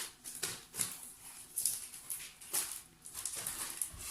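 Packaging being handled: a series of short, irregular rustles and crinkles.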